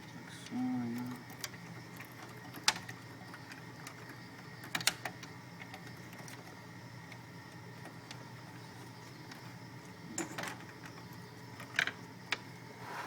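Scattered sharp clicks and light knocks of server parts and the metal chassis being handled during a motherboard swap, a few seconds apart, over a steady low hum.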